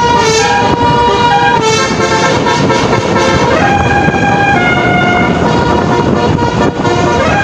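Musical bus horn playing a tune, one loud tone stepping from note to note every half second or so, with a quick upward slide about halfway through, over a steady noisy hiss.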